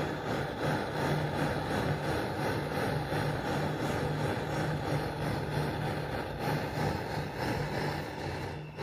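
Handheld gas torch burning with a steady, rushing flame as it heats a crucible. The sound dips briefly near the end.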